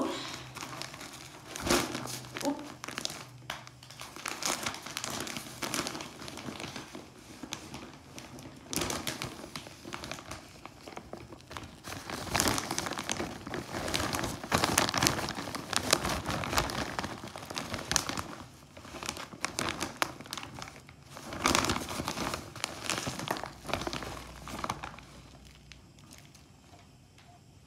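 Plastic bag of potting soil crinkling and rustling in irregular bursts as it is handled and tipped, with soil spilling out of it.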